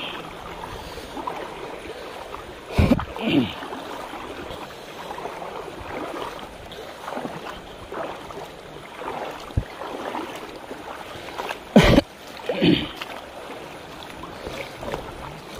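People wading through shallow river water, each stride sloshing and splashing, with louder splashes about three seconds in and again near twelve seconds.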